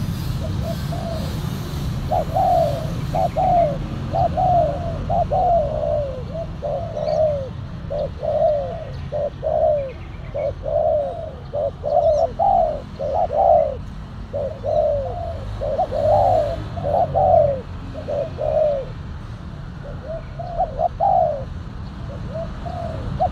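Spotted doves cooing: a long, rapid series of rounded coo notes, breaking off for a moment near the end before starting again, over a steady low rumble.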